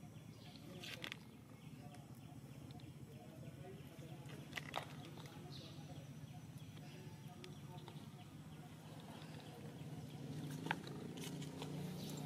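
Quiet outdoor background with a steady low hum and a few short sharp clicks or squeaks, about a second in, near the middle and near the end.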